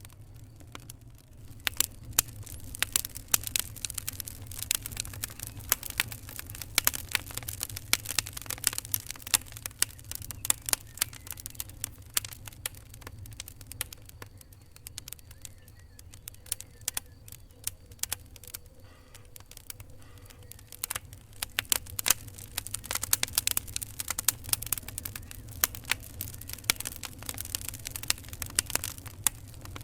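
Fire crackling: dense, irregular sharp pops and snaps over a low, steady rumble.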